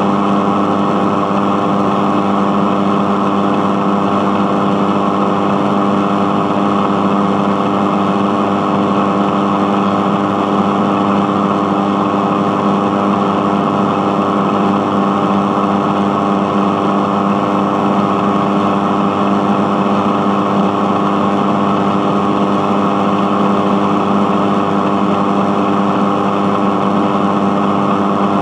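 Radio buzzing: a loud, steady electrical buzz, low-pitched and rich in overtones, that does not change.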